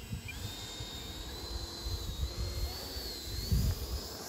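Whine of a 70 mm electric ducted fan on an FMS Avanti RC model jet, steady and then rising in pitch near the end, over gusty wind rumble on the microphone.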